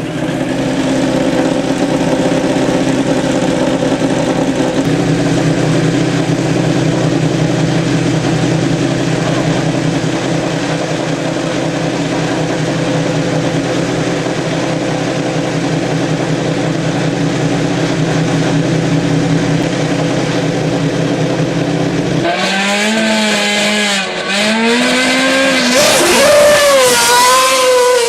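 Hillclimb racing car engine held at a steady, unchanging pitch for about twenty seconds. About three quarters of the way through it breaks into hard revving, the pitch swinging rapidly up and down through the gears.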